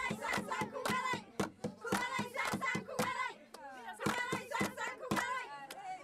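A group of Somali women singing together while clapping their hands in a quick, steady rhythm of about three claps a second.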